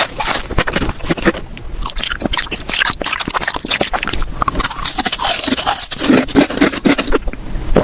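Close-miked eating: a person biting and chewing food, with rapid crunchy and wet clicking mouth noises throughout.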